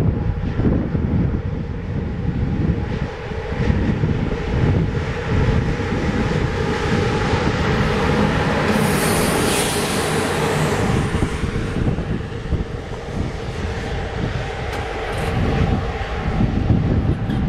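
Romanian CFR electric locomotive running light and passing close at speed: a steady rumble of wheels on rail with a constant motor and blower hum, and a hissing rush as it goes by about nine seconds in. Wind gusts on the microphone throughout.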